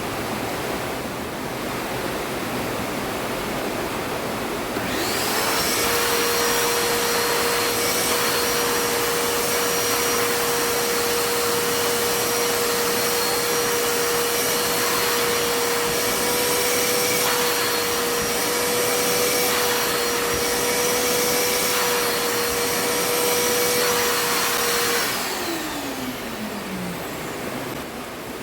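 Wet-and-dry vacuum cleaner switched on about five seconds in, its motor quickly rising to a steady whining hum with suction hiss, then switched off near the end, the pitch falling as the motor winds down.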